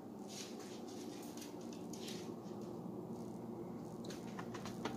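Faint handling of a plastic bottle of canola oil, a few soft scrapes, then short glugs and drips near the end as oil pours into an empty thin metal skillet, over a steady low hum.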